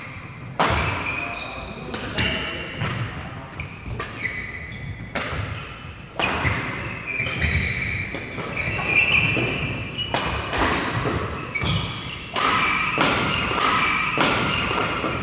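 Badminton doubles rally: repeated sharp cracks of rackets striking the shuttlecock, more than a dozen hits, with shoes squeaking briefly on the court mat between strokes.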